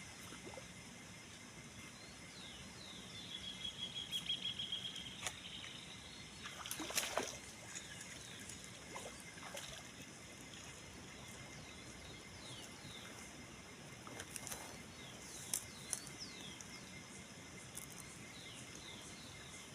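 Wild birds calling: repeated short downward chirps and a chirping trill about three seconds in, over a steady faint hiss. A short noisy sound about seven seconds in is the loudest, with another brief one near fifteen seconds.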